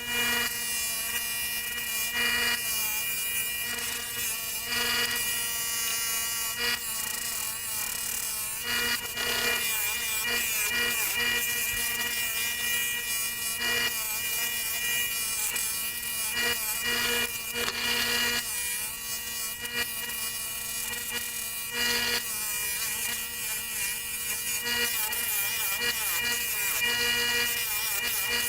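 Electric belt sander running with a steady motor whine, while work is pressed against the moving belt in repeated rubbing passes.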